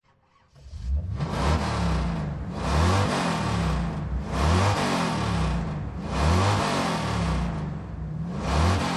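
A car engine revving up again and again, about five rising revs roughly every one and a half to two seconds.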